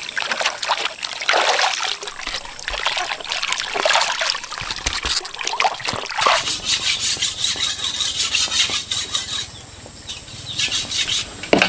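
Water splashing and trickling in uneven bursts, with a quicker stretch of splashing in the second half.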